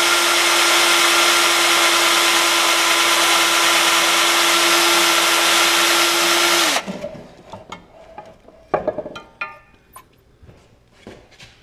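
Electric drill running at a steady speed as it bores a bolt hole through a snowblower's metal impeller blade and add-on paddle, cutting off abruptly about seven seconds in. A few knocks and clatters follow as the drill is lifted away, with one louder knock near the end.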